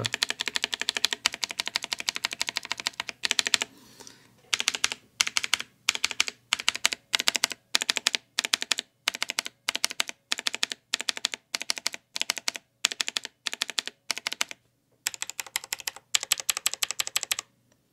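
Mechanical keyboard with blue switches lubed with Vaseline and hand cream, keys pressed in a fast run, then in short clusters about twice a second, then another fast run near the end. On the lubed switches the scratchy crackle is gone.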